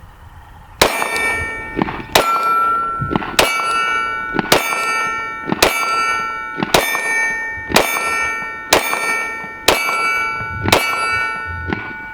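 Glock 20 10mm pistol fired about ten times at a steady pace of roughly one shot a second, each hit making a steel target ring on, so the ringing runs between shots.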